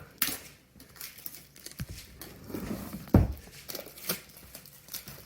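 A laptop box being handled and tapped, with scattered rustles and knocks and one louder thump about three seconds in.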